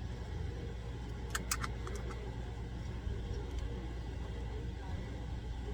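Steady low background hum, with a few light clicks about a second and a half in from handling a small makeup case.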